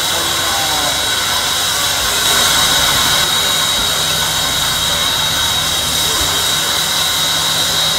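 D51 200 steam locomotive hissing steam steadily, with a thin, steady high whine running through the hiss.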